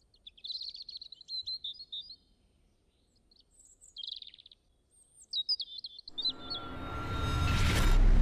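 Small birds chirping and twittering in short, quick phrases, in three bursts with pauses between. From about six seconds in, a rising swell of noise builds steadily louder to a peak at the end.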